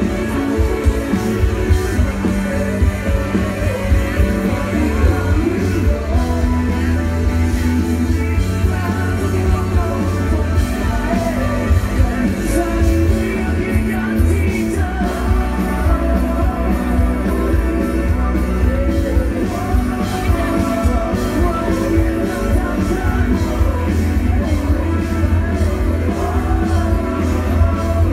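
Live rock band playing with a male singer through the concert PA, heard from in the crowd: steady, loud drums, bass and electric guitars under the lead vocal.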